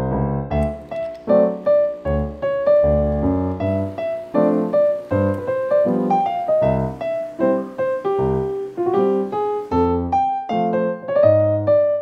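Background piano music: a gentle melody of struck notes over low chords.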